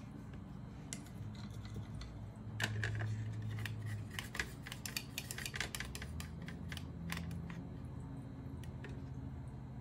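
Paintbrush tapping and clicking against a hard paint container, a quick run of light clicks lasting about three seconds, over a low steady hum.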